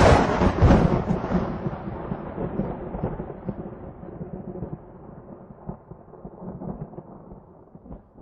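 Thunder: a sudden loud thunderclap that rolls on in a long, slowly fading rumble.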